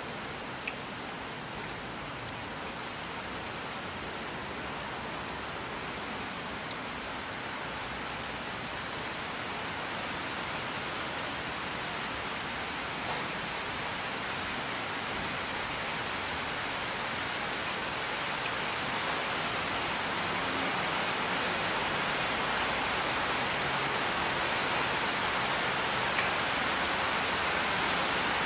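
Heavy rain falling as a steady, even hiss that slowly grows louder.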